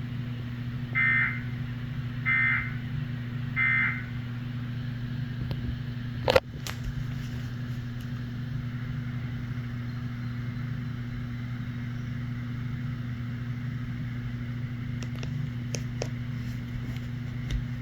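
EAS end-of-message tones from the TV: three short warbling digital data bursts about a second apart, the signal that closes an emergency alert. A single sharp click follows a couple of seconds later, the loudest sound, with a steady low hum underneath.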